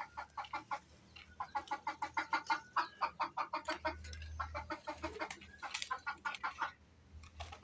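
Desi hen clucking: bursts of short, rapid clucks repeated several times, the kind of calling a hen makes around laying.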